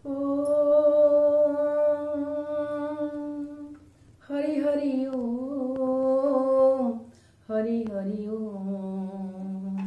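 A woman's voice humming three long, sustained notes in a prayerful intonation. The first holds steady, the second wavers a little, and the third, after a short pause, is lower.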